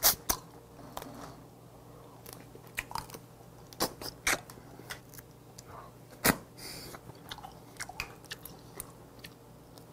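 Close-miked eating of steamed snow crab: chewing and sucking leg meat, with scattered sharp clicks and cracks of crab shell being snapped and handled, the loudest about four and six seconds in.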